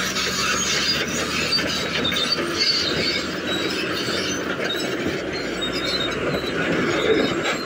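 Caterpillar D8T crawler dozer's steel tracks squealing and clanking as it crawls and pushes rock with its blade, with the diesel engine running under load beneath.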